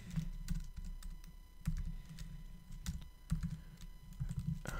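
Typing on a computer keyboard: irregular keystrokes, each a sharp click with a dull low thud.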